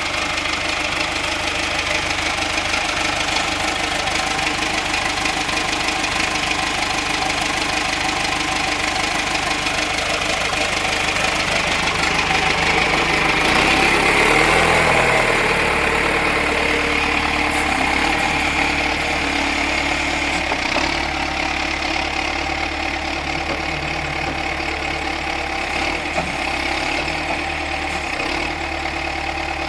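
John Deere 510C loader backhoe's turbo diesel engine running steadily. About halfway through it gets louder and its pitch shifts for a few seconds, as the machine's hydraulics load it.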